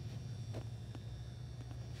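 A steady low hum with a faint high whine, broken by a couple of faint clicks.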